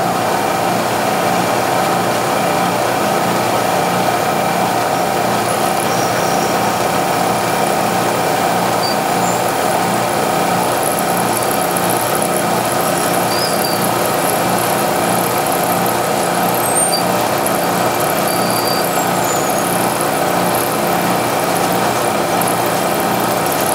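Bridgeport-style knee mill running steadily as its end mill takes a 30-thousandths-deep pass, cutting the extractor slot in a rifle bolt.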